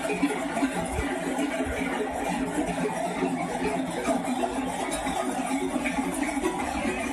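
A large flock of sheep moving along a paved city street, heard as a steady, dense din of the mass of animals.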